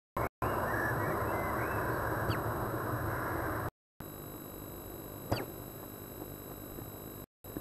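A tawny owl sneezing once, a short sharp burst about five seconds in, over a steady background hiss. The uploader thinks dust in the nest box may be the cause.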